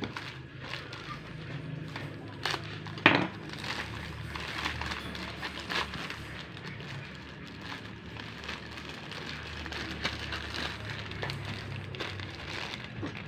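Black plastic mailer bag crinkling and rustling as it is cut open with a knife and pulled apart by hand, with scattered clicks and one sharp knock about three seconds in.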